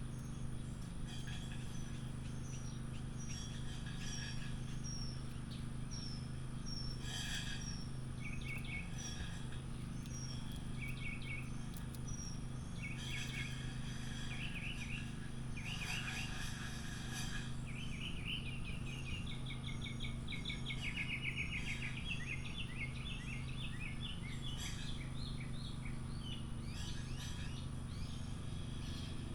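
Several small birds chirping and calling, with a fast run of notes about twenty seconds in, over a steady low hum.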